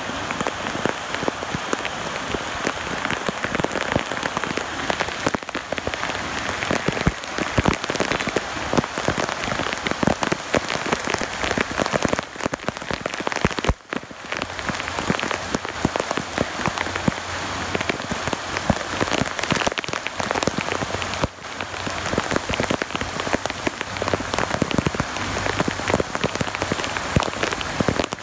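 Heavy rain pelting a flooded street and the standing water around a drain: a dense, steady patter of drops.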